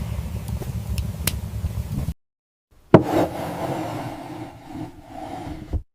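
A low rumble that cuts off suddenly, then after a short silence a sharp knock, a few seconds of softer noise, and a second, lighter knock near the end.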